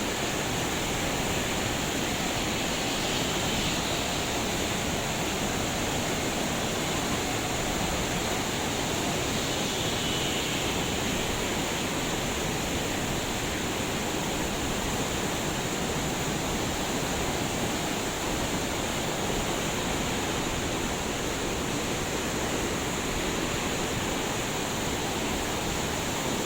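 Waterfall: water falling and splashing in a steady, unbroken rush of noise.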